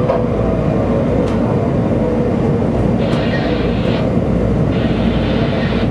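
Washington Metro subway train running along the track, heard from inside the leading car: a steady, loud rumble from the wheels and running gear. A higher hiss comes in twice in the second half.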